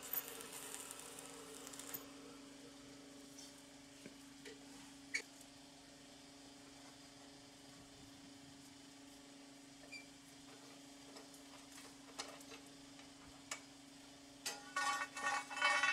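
Stick-welding arc crackling for the first two seconds, then stopping. After it, a steady hum with scattered light clicks of steel being handled, and a short loud metallic clatter with ringing near the end.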